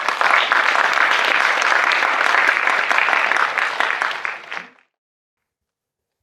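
Audience applauding for about four and a half seconds, then cutting off abruptly into dead silence.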